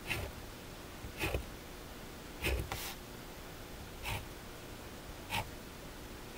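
Felt-tip marker pen swept across paper in quick strokes while whiskers are drawn: about six short scratchy swishes, roughly one a second, two of them close together midway.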